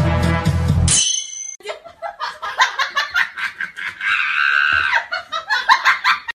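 Background music cuts off about a second in, followed by a brief high chime. Then comes a run of quick, choppy bursts of laughter, with a higher drawn-out squeal in the middle.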